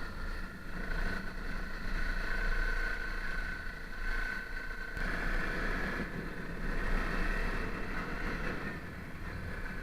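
Honda CRF 250 L's single-cylinder engine running steadily at low revs, with a steady high whine over a low engine hum.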